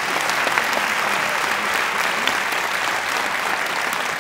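Audience applauding: many hands clapping in a steady, dense patter after a concert band performance.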